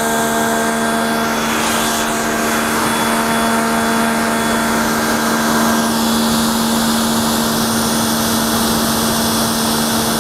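Motoyama 650-watt electric pressure washer running with a steady hum, its wide spray jet hissing against a motor scooter's bodywork.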